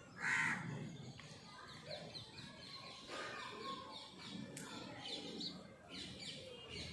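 A crow caws once just after the start, then small birds chirp in quick, repeated high notes.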